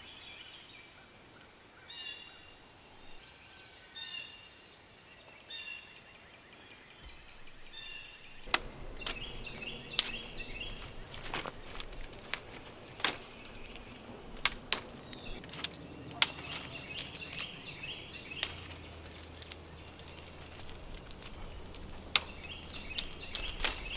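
Songbirds singing in short, repeated phrases. From about eight seconds in, dry twigs and branches crackle and snap sharply and irregularly as a dead brush pile is pulled apart by hand, while the birdsong goes on.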